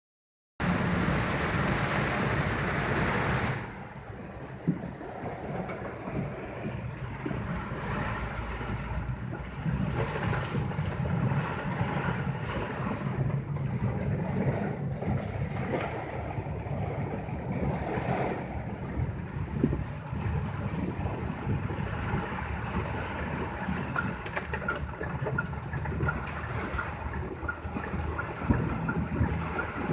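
Typhoon storm noise: a steady rush of water and wind with a low rumble on the microphone. It is louder and brighter for the first few seconds, then settles to a lower wash.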